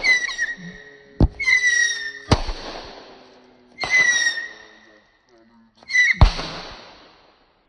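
A 16-shot 'missile' firework cake on a remote-control boat firing shot after shot: each shot is a high whistle of about a second, with sharp bangs among them. Four whistles in all, the last after a short pause.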